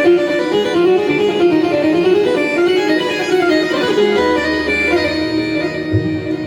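Roland Fantom-X6 synthesizer keyboard playing a quick melody over a held drone note, with low bass notes coming in about four seconds in.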